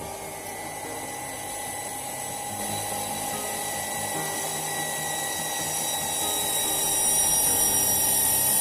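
Shimizu PS-130 BIT electric water pump running with a steady high-pitched motor whine that grows louder toward the end, its worn bearing just replaced so the loud bearing noise is gone. Background music plays faintly underneath.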